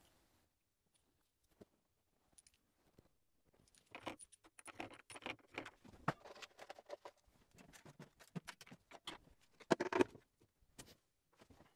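Faint, light scratching and small taps of a hand tool working on a leather-hard clay platter, in clusters that begin about four seconds in, with the loudest knock near the end.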